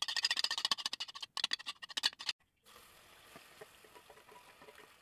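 A spoon beating egg in a metal bowl: rapid clinking strokes against the bowl for about two seconds, with a short pause in the middle. They stop suddenly and give way to a faint steady sizzle with light ticks as diced potato goes into hot oil in a metal pan.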